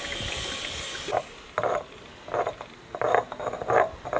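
Pestle mashing and stirring a wet herb-and-oil sauce in a marble mortar: irregular wet scraping strokes, two or three a second. Before them a steady hiss cuts off sharply about a second in.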